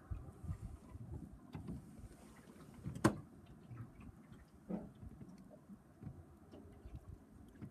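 Small waves slapping irregularly against a small boat's hull, with soft knocks and one sharp click about three seconds in.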